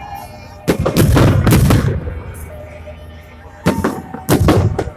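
Aerial firework shells bursting overhead as loud bangs: a quick run of several bangs about a second in, then two more near the end.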